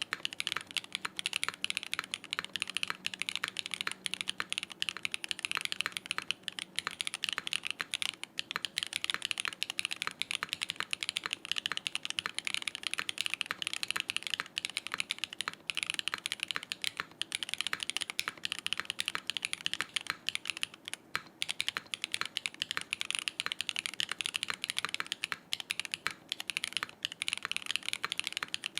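Continuous fast typing on a Smith+Rune Iron160 mechanical keyboard with a copper plate, lubed Gateron Raw switches, Staebies stabilizers and CRP R5 keycaps, with no foam or dampening inside. It gives dense, rapid key clacks with a bright top end.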